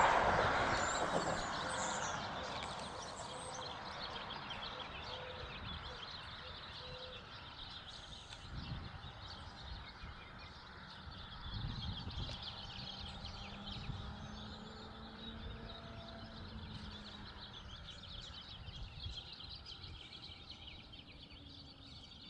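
Outdoor roadside ambience. A passing vehicle fades away over the first few seconds, then faint birds chirp steadily and high, with soft swells of distant traffic now and then.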